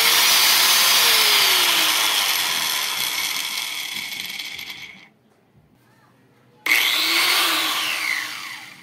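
Corded angle grinder switched on twice, its motor whine rising and then falling as it winds down each time: first with its old gearbox grease, then, about seven seconds in, after fresh grease. The first run fades and cuts off about five seconds in.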